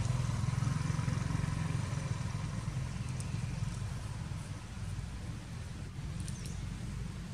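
Low rumble of a motor vehicle engine, strongest at first and fading away after a few seconds.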